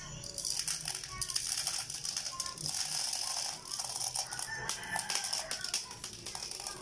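Plastic airsoft BB pellets rattling into an M4 airsoft magazine as they are loaded by hand, a dense run of small clicks.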